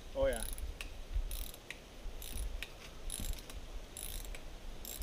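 Ratcheting hand tool clicking in short runs, about one a second, as screws are worked on a signpost. A short wavering squeak sounds near the start.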